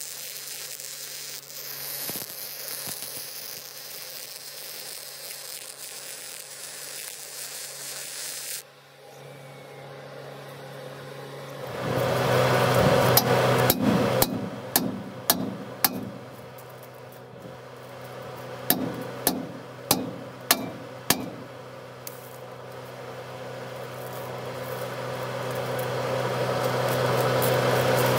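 MIG welding arc crackling and buzzing steadily as solid steel wire is laid into the joint of a new pintle hitch, cutting off suddenly about eight and a half seconds in. After a pause a steady low hum comes up, and a hammer strikes the steel hitch in two quick runs of about five blows each.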